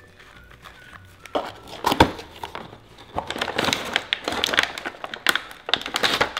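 Crinkling and crackling of clear plastic wrap and packaging being handled and pulled open, starting after a quiet first second, with a sharp snap about two seconds in.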